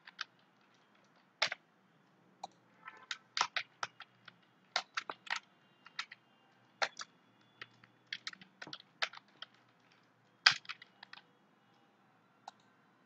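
Computer keyboard being typed on: irregular runs of short, sharp key clicks with gaps between them, and one louder click about ten seconds in.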